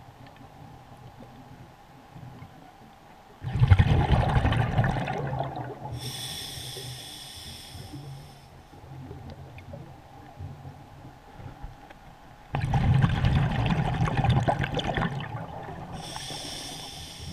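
A diver breathing through a regulator underwater: two breath cycles, each a loud sudden rush of exhaled bubbles lasting about two seconds, followed a little later by the thin hiss of an inhalation through the regulator.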